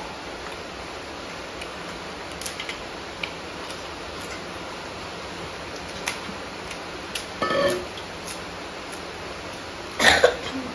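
Mukbang eating sounds over a steady hiss: small clicks and smacks from fingers on steel plates and from chewing, a short pitched mouth sound about seven and a half seconds in, and a louder sudden sound near the end.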